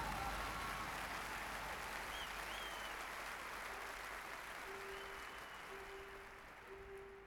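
Large stadium crowd applauding and cheering after a big ensemble hit, the applause fading away steadily. From about four seconds in, a soft held note repeats quietly underneath.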